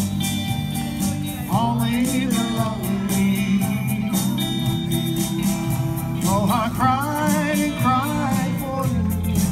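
Live pop-rock music with electric guitar and a steady bass accompaniment; a wavering melody line with heavy vibrato comes in twice.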